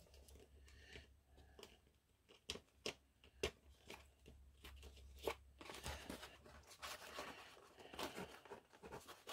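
Faint handling of a foam model-plane tailplane and a small screwdriver: scattered light clicks, taps and scrapes, over a faint low hum that stops about two-thirds of the way through.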